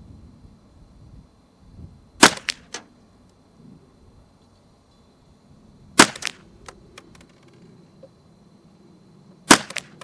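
Marlin Model 60 semi-automatic .22 LR rifle firing CCI standard velocity rounds, three slow aimed shots about four seconds apart, each sharp crack followed by a few faint clicks.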